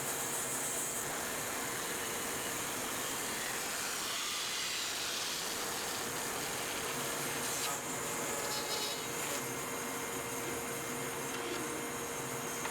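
Power saw resawing a thick maple board, a steady noise of the blade cutting through the wood.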